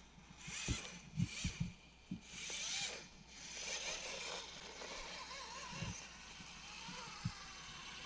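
Axial Capra RC rock crawler's electric motor and gears whining in short bursts as it works down bare rock, with sharp knocks of its tyres and chassis striking the stone. The whine then becomes steadier as it climbs, with one more knock near the end.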